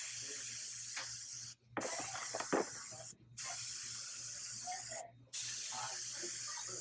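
Airbrush spraying underglaze: a steady high hiss of air and colour that stops for a moment three times as the trigger is let off, then starts again at once. A faint low hum runs underneath.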